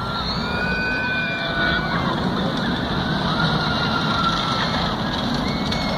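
Steady outdoor background noise, with a few faint whistling tones, each held about a second, coming and going over it.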